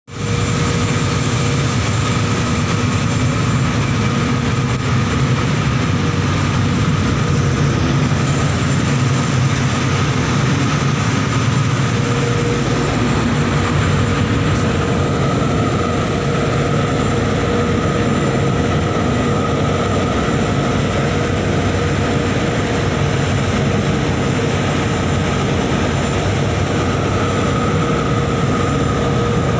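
Loud, steady drone of heavy machinery running without a break: a deep rumble overlaid with a few constant hums at fixed pitches.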